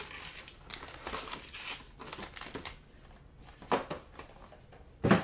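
Foil wrappers of Panini Prizm trading card packs crinkling and rustling as the packs are pulled out of the hobby box and stacked. Two sharp knocks, one about three and a half seconds in and a louder one at the very end.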